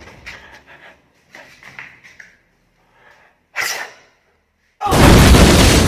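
A single short sneeze a little past three and a half seconds in, then near the end a sudden very loud boom with crashing.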